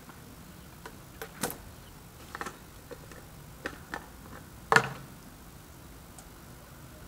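Scattered clicks and knocks of hands handling plastic water jerrycans, with one louder knock about five seconds in.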